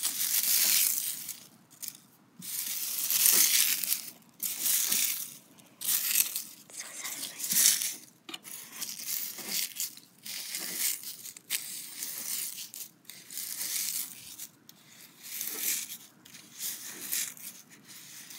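Dry fallen leaves being crunched and crumbled by hand, a crisp crackling that comes in irregular bursts about once a second, louder in the first few seconds.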